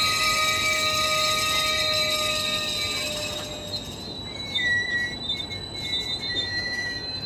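Steel wheels of GO Transit bilevel passenger coaches squealing in several high, steady tones over the rumble of the moving train. The squeal shifts to a different pitch about three and a half seconds in.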